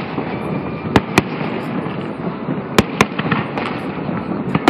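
Aerial fireworks shells bursting in sharp bangs: two close together about a second in, another pair near three seconds, then several smaller pops, over a steady noisy background.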